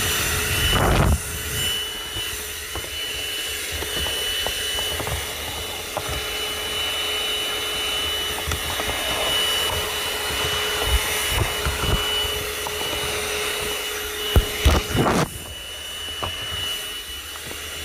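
AGARO CV1077 handheld 12-volt car vacuum cleaner with a 106-watt motor running steadily with a high whine, its nozzle sucking up dust along a car's centre console. A few knocks of the nozzle against the plastic stand out about a second in and again near fifteen seconds.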